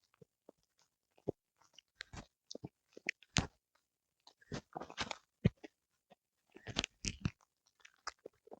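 A small Pomeranian–Spitz mix dog chewing and crunching on a whole eel, in irregular bursts of crisp bites with short pauses between.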